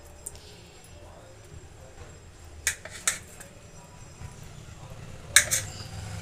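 Kitchen knife cutting through blocks of paneer on a plate, the blade clicking against the plate three times.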